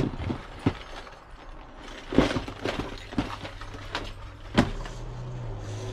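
Plastic tackle boxes and fishing gear being handled and set down as a storage drawer is emptied: a series of knocks and clatters, the loudest about two seconds in. A low steady hum comes in near the end.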